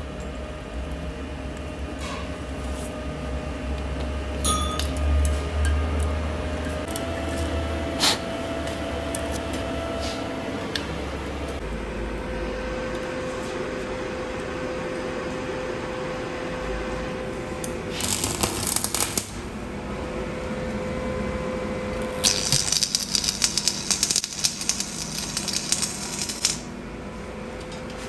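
Arc-welding machine humming, with two spells of stick-welding arc crackle: a short one past the middle and a longer one of about four seconds near the end, as weld is laid onto a broken wheel-hub stud.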